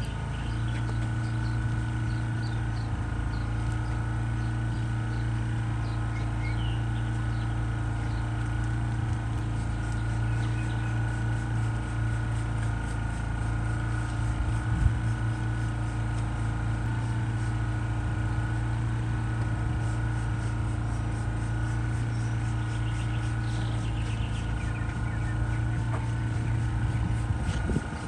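A small engine running at a constant speed, an unchanging steady hum, with a few faint bird chirps over it.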